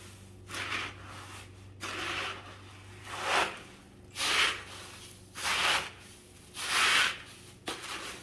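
Spoon stirring Rice Krispies cereal coated in melted marshmallow, a rustling scrape with each stroke, about six strokes a little over a second apart.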